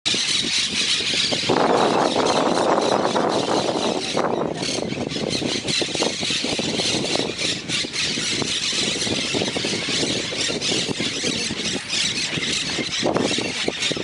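A colony of monk parakeets at their communal stick nests, many birds calling at once in a dense, continuous high-pitched chatter. A lower noise swells under the calls from about a second and a half in to about four seconds in.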